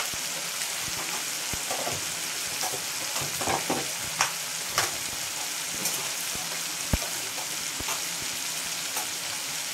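Tomato-onion masala in oil sizzling and bubbling in a steel kadhai, with a few sharp clicks standing out from the steady sizzle.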